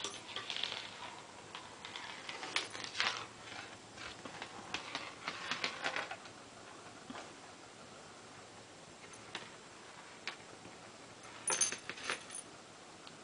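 Light scattered clicks and rustling as a white Persian chinchilla cat moves about and brushes against the camera, in two clusters with a quieter stretch between.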